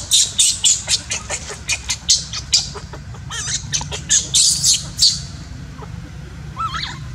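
Baby monkey screaming: a rapid run of short, shrill shrieks for about five seconds, then a few rising-and-falling squeals near the end.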